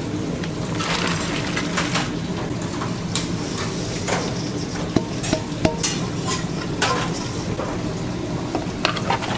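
Kitchen work: scattered sharp clinks and clatters of metal utensils and dishes over a steady background hiss and hum, with a cluster of clinks around the middle and another near the end.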